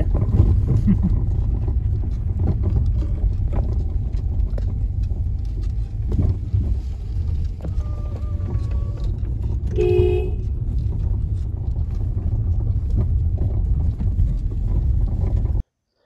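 Vehicle running over a rough off-road track, a steady low rumble, with a short horn toot about ten seconds in. The sound cuts off suddenly just before the end.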